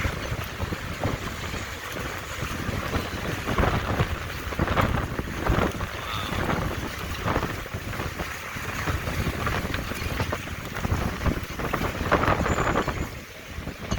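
Hurricane wind gusting hard and buffeting the microphone, coming in uneven rushes.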